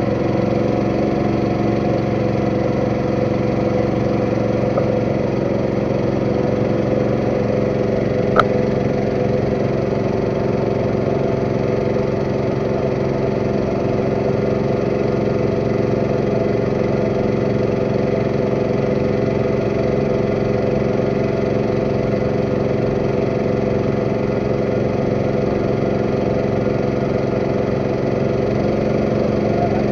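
Boat engine running steadily at an even pitch while the boat cruises, with one short click about eight seconds in.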